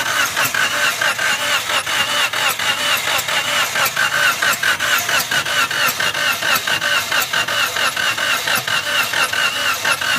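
Starter motor cranking a 2019 Suzuki Cultus's three-cylinder engine in a steady, even rhythm without it catching. The mechanic puts the failure to start down to weak compression: water from a blown head gasket has got onto the pistons.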